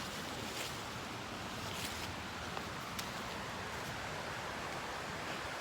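Waterfall rushing steadily, swollen and gushing after heavy rains, with a few faint clicks.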